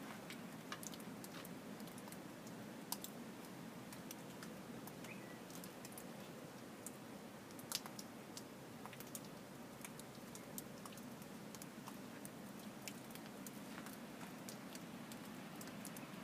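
Faint, irregular sharp ticks and clicks scattered over a steady low hum.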